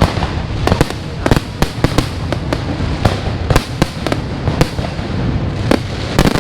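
Large New Year fireworks display: a rapid, irregular string of sharp bangs and pops from bursting shells, over a continuous low rumble of further explosions.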